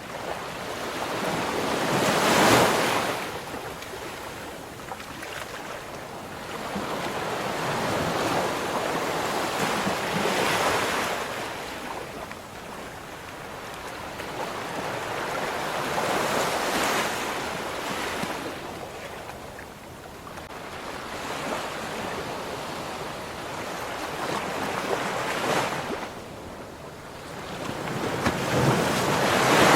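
Ocean surf: waves breaking and washing on a shore, the noise swelling and falling back every several seconds. The loudest breakers come about two seconds in and again near the end.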